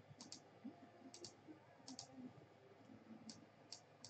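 Faint computer mouse clicks, most in quick press-and-release pairs, about half a dozen spread over a few seconds.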